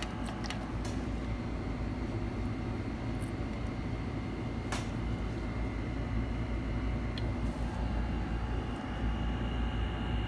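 Steady low hum and background noise, with one faint click about five seconds in.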